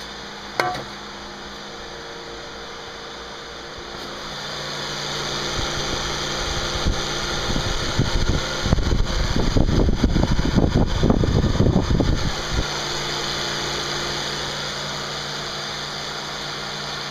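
Steady mechanical hum, with a sharp click just after the start and a louder, rough rumbling stretch from about six to twelve seconds in.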